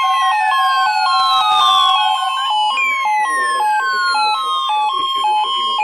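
Electronic emergency-alert siren tones opening a severe thunderstorm warning: two pitches alternating hi-lo several times a second, under a falling wail that sweeps down and restarts about every three seconds.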